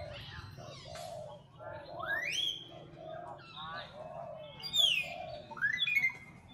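Animal calls: a run of short, low calls about twice a second, with loud squeals rising or falling in pitch over them a few times, the loudest about five seconds in.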